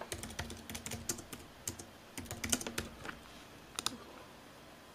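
Typing on a computer keyboard: a quick run of key clicks for about three seconds, then a mouse click a little before four seconds in.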